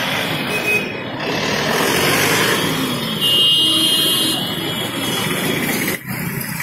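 Busy street traffic: motorcycles and cars running past close by, among them a police van. A high-pitched vehicle horn sounds for about a second just past the middle.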